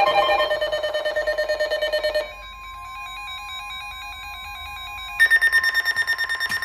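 Emergency Alert System alert tones: electronic beeps pulsing rapidly. The tones drop to a quieter pattern about two seconds in and come back louder in a new pattern about five seconds in.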